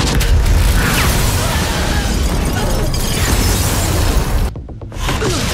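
Action-scene sound effects: a heavy rumbling blast with crashing noise over dramatic score music. It breaks off abruptly for a moment about four and a half seconds in.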